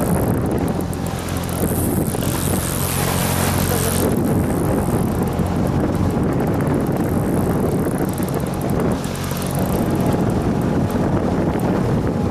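Small boat outboard motor running steadily, with wind buffeting the microphone.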